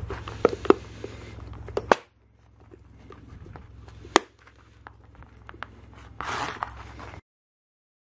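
Plastic base of a steamer being pressed and snapped shut by hand: a few sharp plastic clicks, the loudest about four seconds in, and a brief rustle a little after six seconds. The sound cuts off suddenly about a second before the end.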